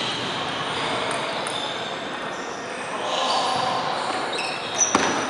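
Table tennis rally: a celluloid ball clicking off paddle and table, with two sharp hits close together near the end, over steady hall noise.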